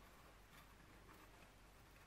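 Near silence, with a few faint clicks and light scraping as a perforated metal plate is handled and fitted onto a round metal housing.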